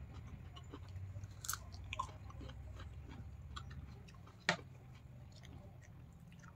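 A person chewing and biting food close to the microphone, with many small irregular mouth clicks and a sharp click about four and a half seconds in, over a low steady hum.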